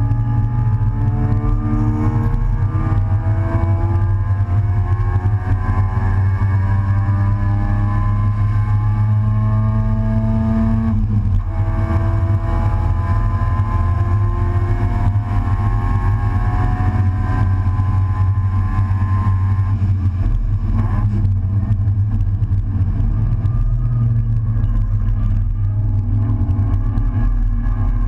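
Race car engine at full throttle heard from inside the open, stripped cockpit, its pitch climbing steadily through long pulls. The climb breaks off about eleven seconds in, as at a gear change, rises again, and changes once more about three quarters of the way through.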